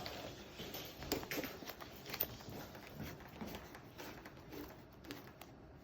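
Faint, scattered small clicks and taps of metal fittings being handled as a flexible refrigerant quick connector is pushed and screwed onto an air-conditioner pipe stub.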